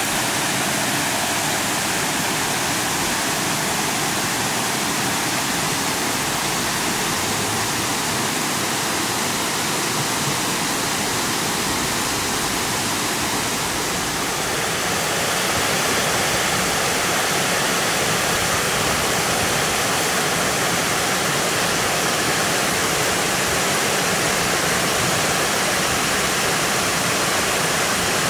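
Forest stream rushing over small waterfalls: a steady, even rush of water, a little louder from about halfway through.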